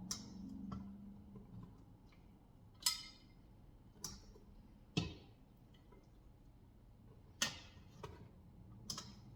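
Utensil knocking and clinking against the Instant Pot's metal inner pot while pieces of cooked lamb are lifted out: about half a dozen sharp, irregularly spaced knocks with a brief ring.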